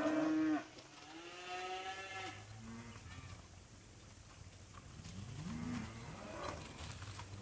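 A herd of cattle mooing: a loud moo at the start, another long moo about a second later, then fainter calls from further off.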